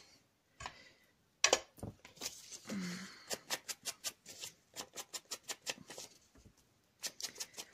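Quick repeated taps of an ink blending tool dabbed on an ink pad and pounced around the edges of a paper image, about three to four light taps a second, with a soft rubbing scuff a couple of seconds in.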